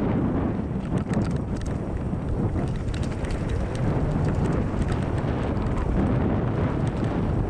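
Mountain bike rolling fast down a dirt trail: a steady rumble of tyres on packed earth with wind buffeting the microphone, and frequent sharp rattling clicks from the bike over bumps.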